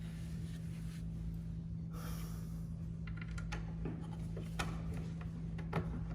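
Small clicks, ticks and a brief scrape of screws being started by hand into the vacuum motor mounting, over a steady low hum.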